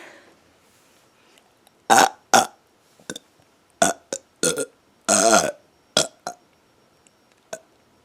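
A woman burping repeatedly: a string of about ten short burps, with a longer, drawn-out one about five seconds in.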